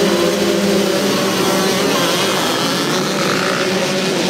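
A pack of 85 cc two-stroke motocross bikes revving together at the start of a race and accelerating away. The engine note turns rougher and more mixed about a second in.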